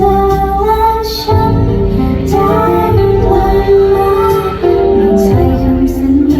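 Female voice singing live over amplified backing music with a steady bass line, held notes changing every second or so.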